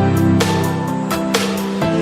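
Background music: an instrumental track with sustained chords and a steady beat.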